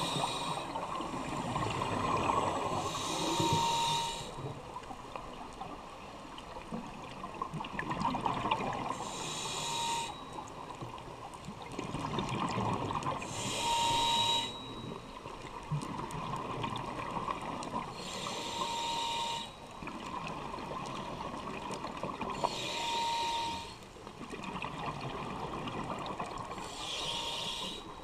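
Scuba diver breathing underwater through a regulator. A hissing inhale comes about every four to five seconds, each ending in a brief tone, and alternates with the bubbling rush of the exhale.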